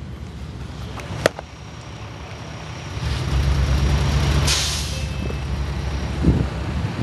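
Motor vehicle rumble that grows louder about three seconds in. There is a single click about a second in and a short, sharp hiss near the middle.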